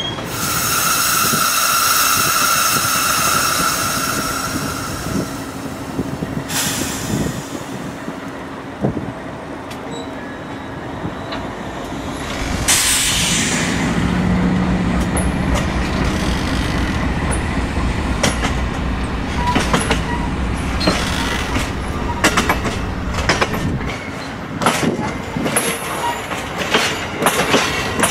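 Amtrak Downeaster passenger coaches rolling past as the train leaves the station. For the first five seconds or so the wheels give a high, ringing metallic squeal. After that comes a low rumble, then steady clicking of the wheels over the rail joints.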